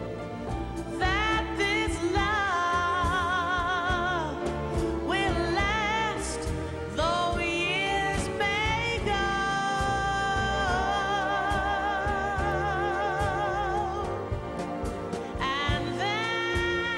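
A song: a solo singer holding long notes with a wide vibrato over instrumental accompaniment.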